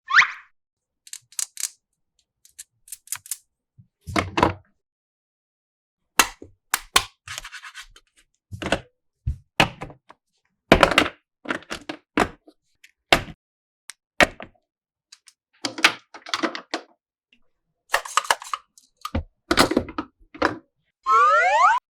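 Plastic toy pieces being handled, opened and set down: a string of separate clicks, taps and knocks at uneven intervals. Near the end a loud rising tone begins.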